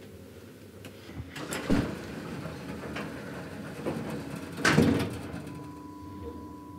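Two dull clunks about three seconds apart, the second the louder, then a steady hum sets in near the end.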